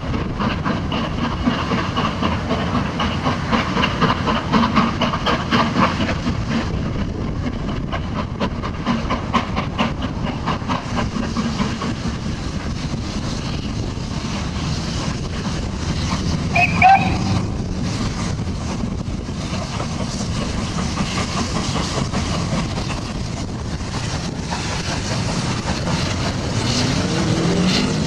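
Two GWR steam locomotives, King-class 6024 King Edward I and Castle-class 5029 Nunney Castle, double-heading a train: a steady run of rapid exhaust beats over rolling wheel and rail noise, with a brief high toot about two-thirds of the way through.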